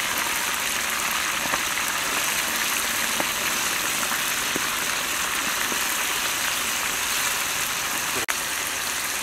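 Eel pieces deep-frying in hot oil in a cast-iron pan: a steady, loud sizzle with a few faint pops. The sizzle breaks off for an instant near the end.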